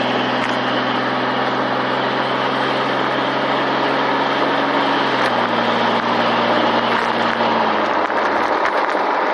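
A Jeep's engine and road noise heard from inside the cab while driving, with the windows down. The engine note holds steady, then drops in pitch about five seconds in and again near eight seconds as the revs fall.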